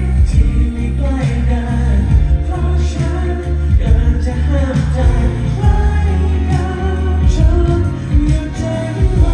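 Pop song with singing, played loud over a concert sound system, with heavy bass and a steady drum beat.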